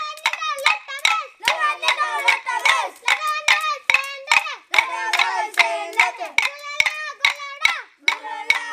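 Boys singing a Telugu folk song in chorus while clacking short wooden sticks together in a steady beat for a jajiri stick dance, about three clacks a second.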